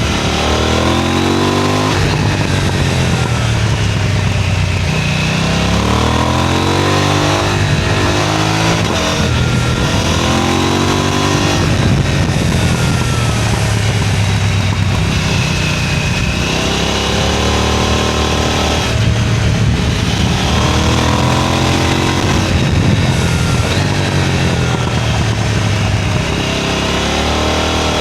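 KTM 990 Duke's parallel-twin engine accelerating hard again and again, its pitch climbing through each gear and dropping back at every upshift.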